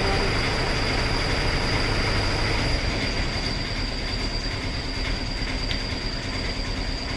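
Steady mechanical running noise from workshop machinery, with one constant high-pitched whine over a dense rushing noise. It eases slightly about halfway through.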